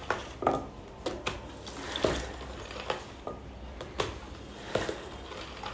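String mop pressed down again and again into the plastic wringer basket of a mop bucket: a series of plastic knocks at uneven intervals, about every half second to a second, over the hiss of water being squeezed out and dripping back into the bucket.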